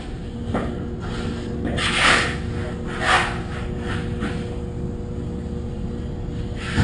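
Steady low mechanical hum, with short rubbing and handling noises on top, the loudest about two seconds in and another about three seconds in.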